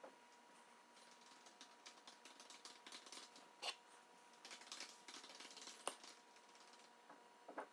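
Faint, irregular crunching and clicking of a Chinese mantis chewing a wolf spider's exoskeleton, with a couple of sharper cracks in the middle.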